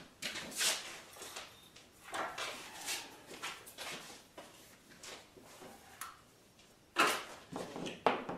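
Scattered workshop handling sounds: a series of separate short scrapes and knocks, with a loud one about seven seconds in.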